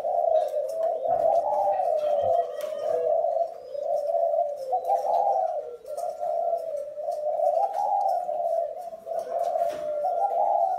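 Caged spotted doves cooing, their low coos overlapping into an almost unbroken, wavering stream with only brief gaps.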